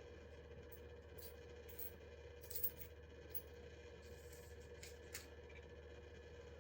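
A series of short, sharp clicks at uneven intervals, about eight of them, the loudest about two and a half seconds in. They sit over a steady low electrical hum.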